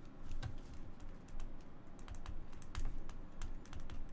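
A run of light, irregular clicks and taps, several a second.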